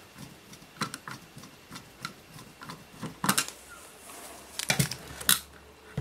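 Irregular clicks and knocks of a long screwdriver and fingers working inside an aluminium avionics box among its wiring, going for a deep screw. The loudest knocks come about three seconds in and again near the end.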